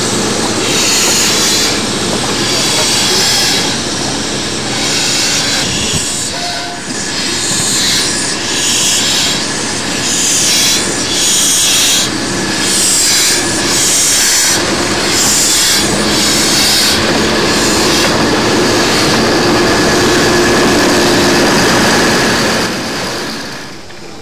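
GWR steam tank locomotive working slowly, its exhaust beats coming about one a second. For the last several seconds they give way to a steady rush of noise with a faint squeal, which falls away shortly before the end.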